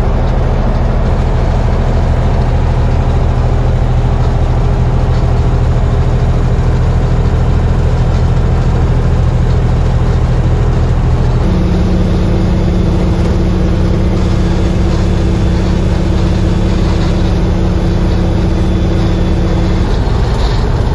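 Semi-truck engine running steadily under way, with constant road and tyre noise; about halfway through the engine's pitch steps up.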